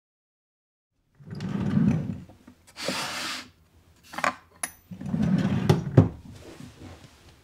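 Plywood drawer sliding open, drill bits clinking as one is picked out of a tray, then the drawer sliding shut and closing with a sharp knock about six seconds in. The first second is near silence.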